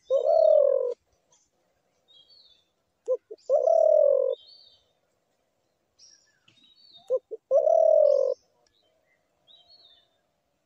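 A spotted dove cooing: three calls about four seconds apart, each one or two short notes followed by a longer drawn-out coo. Small birds chirp faintly in the background.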